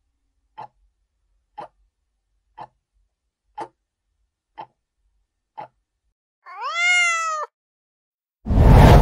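Quiz countdown ticks, six short clicks about once a second, then a cat's meow sound effect lasting about a second, rising and then falling in pitch. A loud whoosh comes right at the end.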